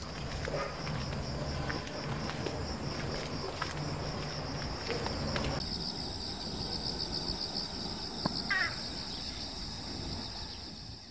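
Steady outdoor insect chorus: a high, continuous buzzing with a fast pulse, growing louder about halfway through. A short bird chirp sounds near the end, and light footfall ticks are heard in the first half.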